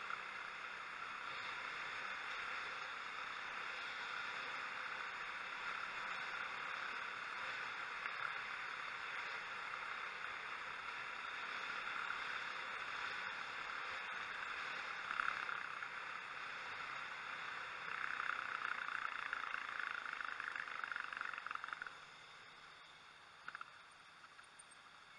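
Steady wind and road rush on a helmet-mounted camera's microphone while riding a motorcycle, with no clear engine note; it falls away sharply about 22 seconds in as the bike slows to a stop.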